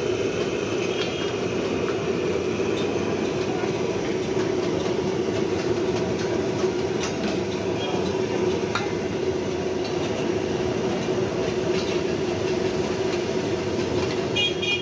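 A steady, even rushing noise with scattered sharp clicks.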